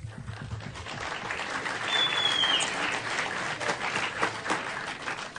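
Audience applauding, swelling about two seconds in and thinning near the end, with a short high whistle about two seconds in.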